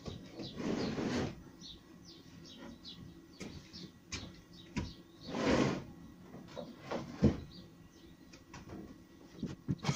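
Handling noise from an 18 mm plywood wardrobe carcass being positioned: two brief scrapes, about a second in and again halfway through, with several light wooden knocks and clicks.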